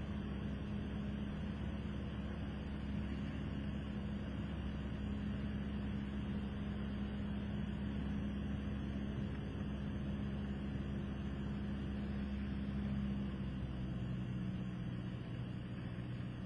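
Cessna 172SP Skyhawk's four-cylinder Lycoming engine and propeller droning steadily, heard inside the cabin. About thirteen seconds in the engine note drops lower.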